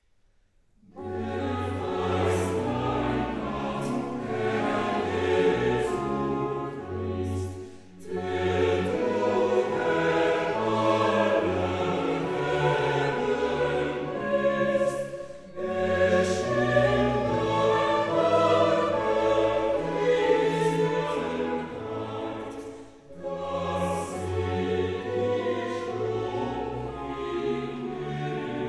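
Orchestral music with choir or operatic singing, starting about a second in and dipping briefly three times.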